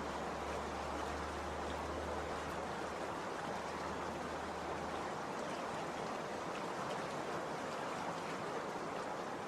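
KC16 petrol concrete road saw running, a steady unbroken noise with a low hum underneath that fades out about five seconds in.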